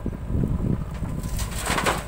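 JCB 3DX backhoe loader's diesel engine running under load as the boom swings a bucket of sand. About one and a half seconds in, a rising hiss of sand starting to pour from the bucket into a tractor trailer.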